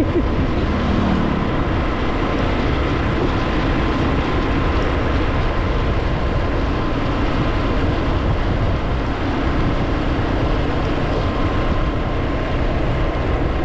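Steady rush and rumble of a vehicle travelling at a constant speed, with wind on the microphone.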